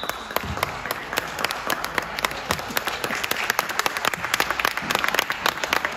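Spectators applauding: many hands clapping in a dense, irregular patter.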